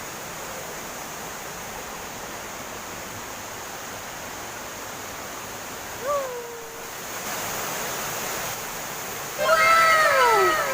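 Steady rush of waterfall water. About six seconds in comes one short pitched swoop, and near the end several louder pitched cries fall in pitch over each other.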